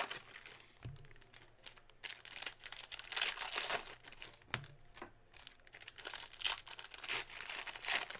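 Shiny foil wrapper of a Panini Prizm trading-card pack crinkling and tearing as hands pull it open, in irregular rustles and crackles.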